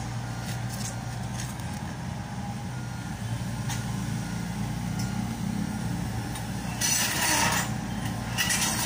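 Komatsu PC70-8 hydraulic excavator's diesel engine running steadily, with two louder bursts of rushing noise near the end.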